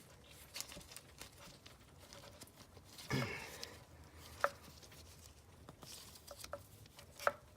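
Scattered small clicks and knocks of a thermostat being wiggled in its snug aluminum housing by hand. There is a brief louder noise about three seconds in and sharper clicks about halfway and near the end.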